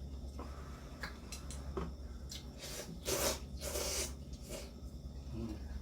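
Ramen noodles being eaten: two loud slurps, one after the other, about three seconds in, with small clicks and taps around them over a steady low hum.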